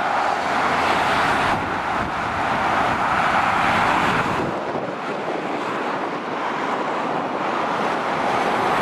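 Motorway traffic passing below: a steady rush of tyre and engine noise from lorries and cars. It shifts abruptly about one and a half and four and a half seconds in.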